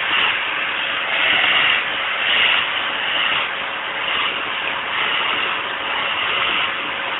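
Vacuum cleaner running, a steady rush of air with a faint hum under it, its brush nozzle drawn through a cat's fur to suck out loose hair. The sound swells and dips every second or so.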